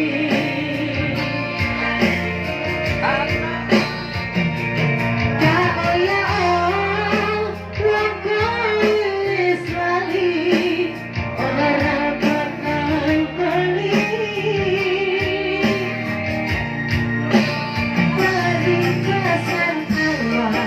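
Dangdut song: a woman singing a wavering, ornamented melody over plucked guitar and a steady bass beat.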